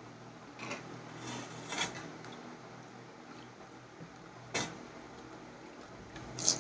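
Crisp panipuri shells cracking and crunching as they are broken open and eaten: a handful of short, sharp crackles, the strongest about four and a half seconds in and near the end, over a faint steady hum.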